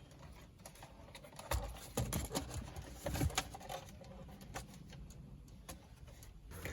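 Scattered light clicks and knocks of plastic dashboard trim being handled and prised at, irregular and unhurried.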